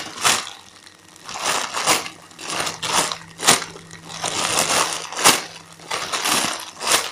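A clear plastic bag crinkles and crackles in repeated bursts, with sharp cracks, as hands squeeze and turn the foam ice-cream-cone squishy inside it.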